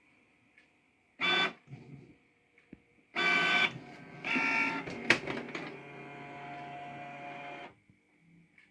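Canon PIXMA G670 inkjet printer working through a black-and-white print: its motors whine in three short bursts with a click, then run in a steady whine for about two seconds and stop. This is the loud mode; the printer is quieter in colour.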